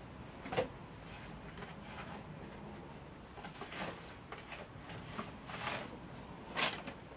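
Faint handling noise of craft materials: soft rustling with a handful of light taps scattered through.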